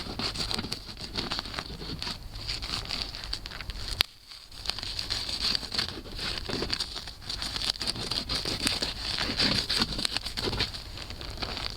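Utility knife cutting through foil-faced duct insulation wrap on sheet-metal duct pipe, with irregular scratching and crinkling of the foil facing. There is one sharp click about four seconds in.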